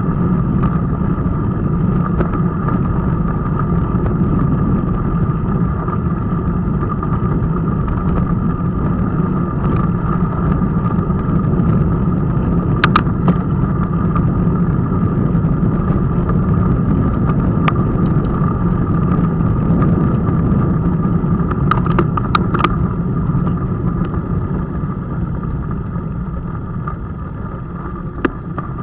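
Steady rumble of wind on a bicycle-mounted action camera's microphone mixed with bicycle tyres rolling over a gravel path, with a few sharp clicks or rattles a little before the halfway point and twice more about three quarters of the way through.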